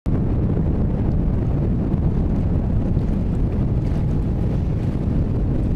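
Wind buffeting the microphone: a steady, choppy low rumble with no distinct events.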